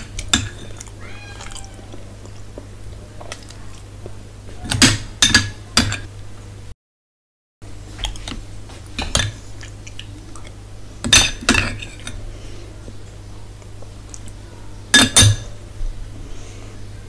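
Close-miked eating sounds: wet mouth smacks and chewing clicks that come in several short clusters. There is a faint high wavering squeak about a second in, and a brief dropout to silence midway.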